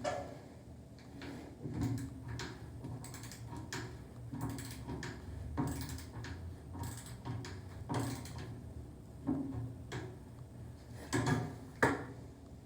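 Irregular clicks, knocks and scrapes of hand tools and metal fixture parts being handled during shower diverter repair work, with a few louder knocks near the end.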